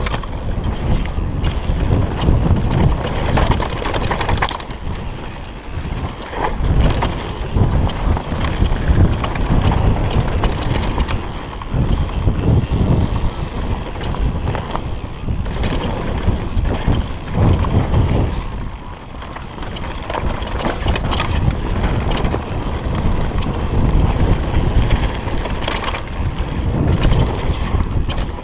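Specialized Demo downhill mountain bike ridden fast down a loose, dry dirt trail, heard from a handlebar-mounted GoPro: a continuous deep rumble of wind on the microphone and tyres on dirt, broken by frequent knocks and rattles as the bike hits bumps.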